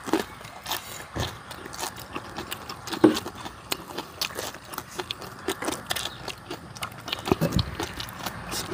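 Close-up eating sounds of people chewing crunchy food, a run of irregular crisp crunches and mouth clicks, one louder crunch about three seconds in.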